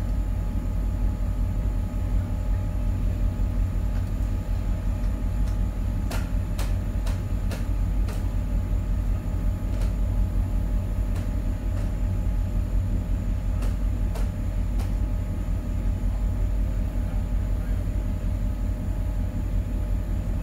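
Heavy truck engine running steadily with a low rumble, plausibly the tow truck powering the winch as it pulls the car out. A few sharp clicks or cracks come through between about six and fifteen seconds in.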